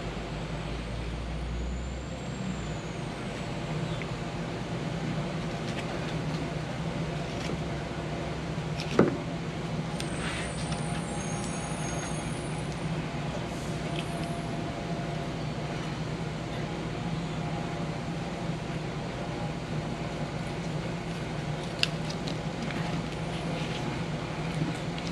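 Steady low mechanical hum, with one sharp knock about nine seconds in and a smaller click later on.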